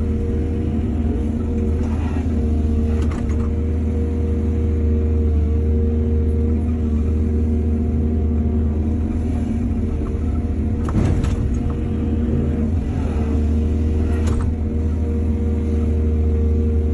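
Excavator's diesel engine running steadily, with a few sharp knocks: about two and three seconds in, again around eleven seconds and near fourteen seconds.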